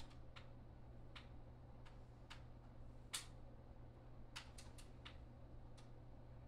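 Near silence with a steady low hum and faint, irregular clicks and ticks, about a dozen, the sharpest one about three seconds in.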